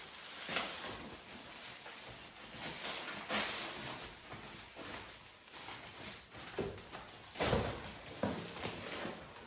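Packaging being pulled and torn off new aluminium bicycle rims: irregular rustling and scraping, with louder swipes about three seconds in and again near the end.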